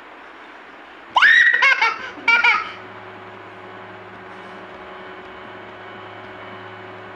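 A one-year-old baby girl gives three short, high-pitched bursts of laughter about a second in. Under and after them a harmonium sounds one steady held chord as her fingers rest on the keys.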